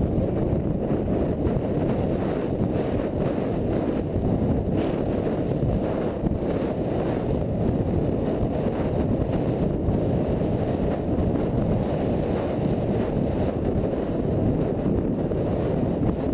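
Steady wind rushing over the microphone of a rider-worn camera during a gallop, with the galloping horse's hoofbeats on the training track beneath it.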